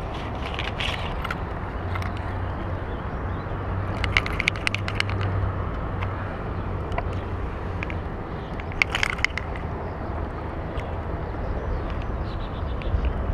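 Clicks and rattles of a fish lip grip and hand-held scale being handled, in two short clusters about four seconds in and again near nine seconds, over a steady low rumble.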